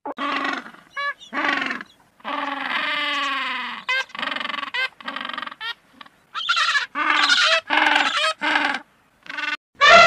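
Humboldt penguins braying: a string of harsh, pitched calls with short gaps between them, one held longer a couple of seconds in and a run of shorter calls in the second half.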